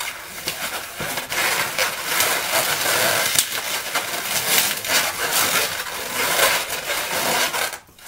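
Inflated Qualatex latex balloons being twisted and squeezed by hand, the latex rubbing against itself and the fingers in a steady run of scrapes as pinch twists are made. The sound drops away briefly near the end.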